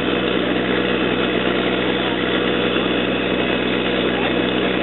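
An engine running steadily at idle: a constant, unchanging drone.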